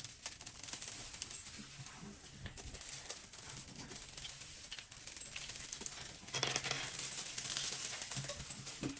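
Small hard plastic slime decorations clicking and rattling as they are handled and rummaged through, the clatter getting busier and louder about six seconds in.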